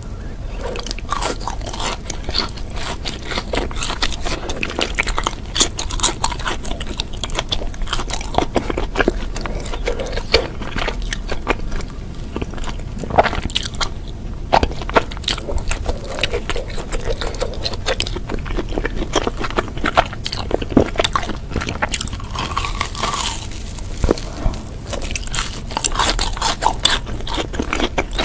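Close-up eating sounds of a cheese-filled ball with a crusty brown coating being bitten and chewed. Dense, irregular crunching and crackling of the crust runs through, mixed with softer chewing.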